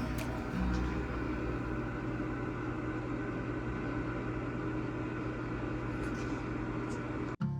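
Steady low mechanical hum of a running machine, with no speech. It cuts off abruptly near the end as acoustic guitar music starts.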